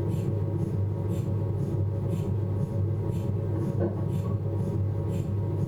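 Philips 1.5 T MRI scanner between imaging sequences: a steady low hum with a few faint steady tones and a soft hiss that pulses about twice a second.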